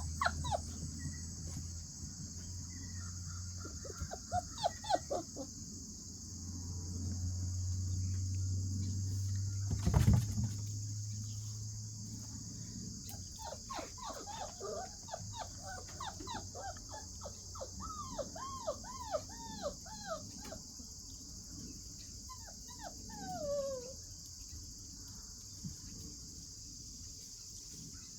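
Puppy whimpering and yipping in strings of short, high, rising-and-falling calls, thickest in the middle, with one longer falling whine near the end. A single loud thump about ten seconds in, over a steady high hiss.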